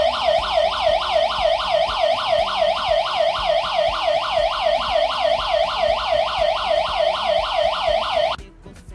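Electronic siren of a WiFi/GSM home security alarm sounding, a loud yelping wail that sweeps down and up roughly three and a half times a second and cuts off suddenly near the end. It is the alarm going off because an intrusion sensor has triggered it.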